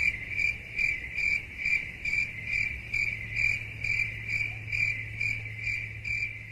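Crickets chirping as a stock sound effect: a steady, even trill pulsing about two and a half times a second over a low hum. It is the classic crickets effect used to mark an awkward silence.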